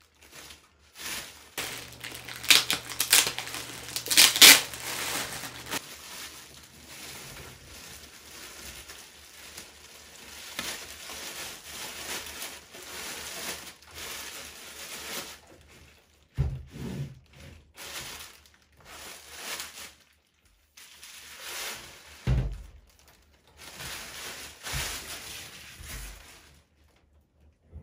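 Clear plastic bag crinkling and rustling as a 1U rack server is slid out of it, loudest in the first few seconds, with two dull thumps partway through.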